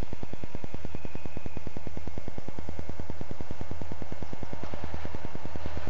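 A set of Southern Pacific diesel helper locomotives running light toward the listener. Their engines give a steady low rumble that fills out near the end as the units come close.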